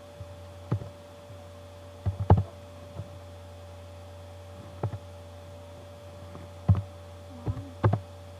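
Computer keyboard keys being pressed, a few separate clacks spaced irregularly, the loudest cluster a little after two seconds in, over a steady low hum.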